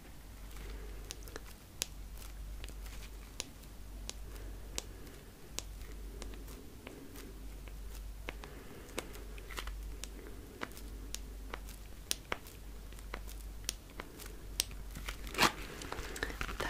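Long fingernails tapping and scratching on a small red wallet, with soft rubbing and crinkling as it is handled: scattered sharp taps, about one or two a second, and a louder cluster of taps near the end.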